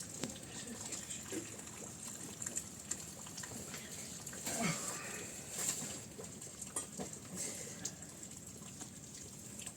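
Steady rain hiss with many small drip and patter clicks. About four and a half seconds in, a short call falls in pitch.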